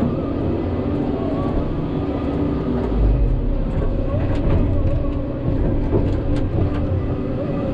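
Hidromek 140 (14-tonne) excavator's diesel engine running under hydraulic load, heard from inside the cab while the bucket dumps and spreads soil. A few light knocks can be heard along the way.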